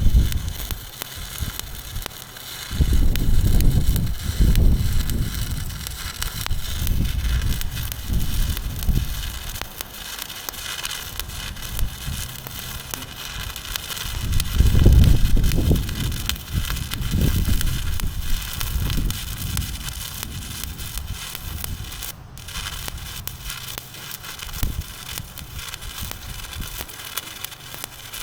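Welding arc crackling and sizzling steadily, with a brief break about three quarters of the way through, under heavy low rumbling gusts.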